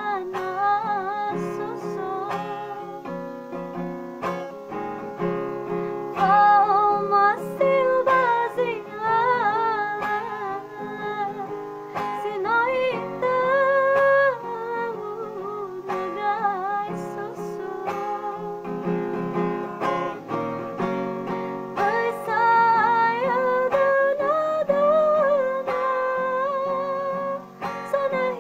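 A woman singing a slow melody in a high voice with wavering vibrato, over guitar accompaniment.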